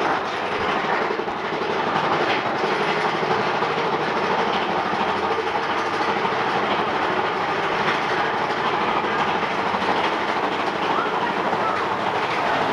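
Big Thunder Mountain Railroad mine-train roller coaster running on its track, a steady rattling clatter of the cars and wheels.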